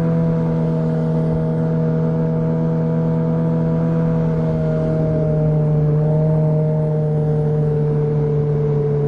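Boat motor running steadily under way at cruising speed, a constant engine drone with little change in pitch.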